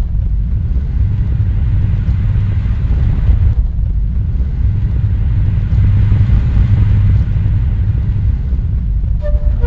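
A deep, steady rumbling drone with a faint hiss above it: a sound effect for a hovering flying saucer.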